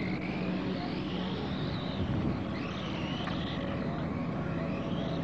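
Radio-controlled model race cars whining past, the pitch rising and falling as they speed up and slow down, over a steady low rumble.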